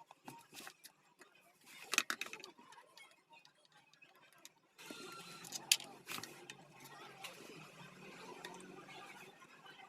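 Scattered clicks and light knocks of small hard parts being handled, the loudest about two seconds in and near the middle. A steady low hiss sets in about halfway through.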